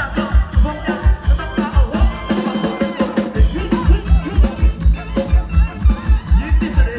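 Thai luk thung band playing an instrumental passage with a melody line over a steady kick-drum beat. The drums drop out briefly about two seconds in and come back about a second and a half later.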